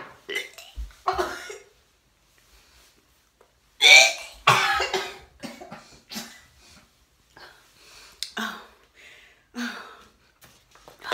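A woman coughing and gagging in a string of short throat bursts, the loudest about four seconds in, a reaction to the sour taste of a warm apple cider vinegar drink.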